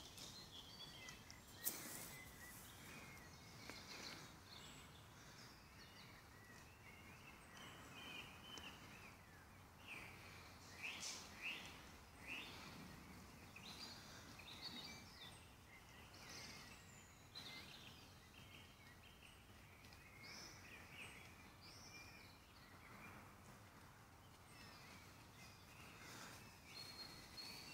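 Faint woodland birdsong: several small birds chirping and trilling over a soft background hiss, with one sharp click about two seconds in.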